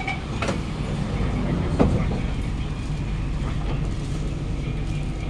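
Metro train doors shutting with a knock about half a second in and a louder knock near two seconds, then the Kawasaki-CRRC Sifang C151A electric train starting to pull away with a steady low rumble.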